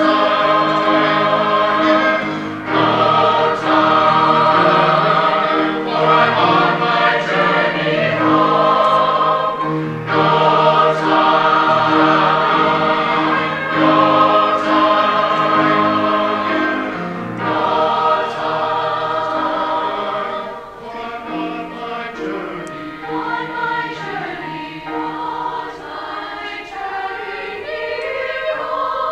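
Mixed choir of men's and women's voices singing in parts, full and loud, then dropping to a softer passage about two-thirds of the way through.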